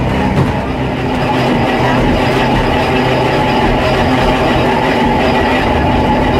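Old electric railcar of the narrow-gauge Höllentalbahn running along the track, heard from inside the driver's cab: a steady hum with several held tones over the rumble of the wheels on the rails.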